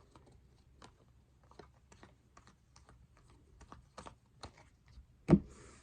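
Baseball trading cards being handled and flipped through by hand: a run of soft, irregular clicks and ticks as the cards tap and slide against each other, with one sharper click near the end.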